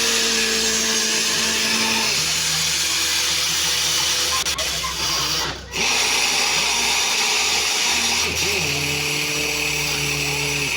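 Borewell drilling rig running: a loud, steady rush of noise under a machine hum whose pitch steps down about two seconds in and changes again later, with a brief dip a little past halfway.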